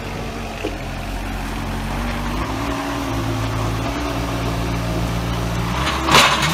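Moffett truck-mounted forklift's engine running under load, rising in pitch about two seconds in and then holding steady while the tipped-forward machine is worked back onto its wheels. Near the end comes a loud, short clatter.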